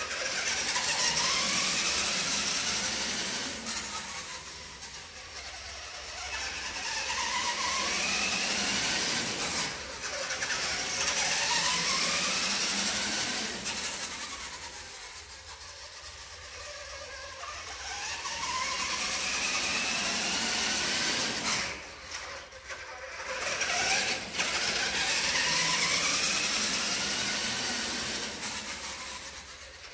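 Electric motor of a 1990 Kyosho Double Dare RC monster truck whining as it is driven in repeated bursts, the pitch rising each time it speeds up and falling away as it eases off, several times over.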